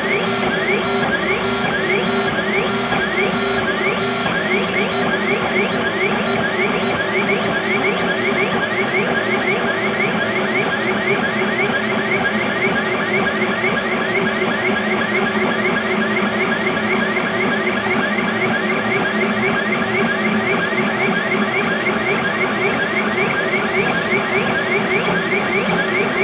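XYZ da Vinci Mini W+ 3D printer printing: its stepper motors whir in quick, repeated rising tones as the print head moves back and forth, over a steady hum.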